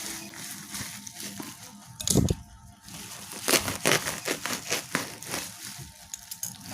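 A tightly wrapped parcel being torn and crinkled open by hand: irregular crackling and rustling of the packaging, with a louder thump about two seconds in.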